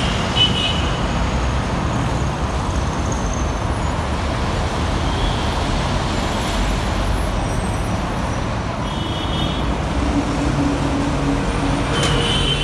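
Busy road traffic: trucks and other motor vehicles passing close by, engines running and tyres rolling on the road in a steady din.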